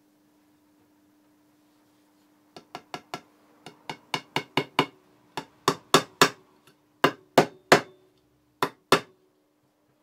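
A small metal fret hammer tapping Sanko 214H fret wire into the slots of a rosewood guitar fingerboard. There are about twenty sharp taps in quick groups of two to four, starting a couple of seconds in and growing louder, with the last pair near the end.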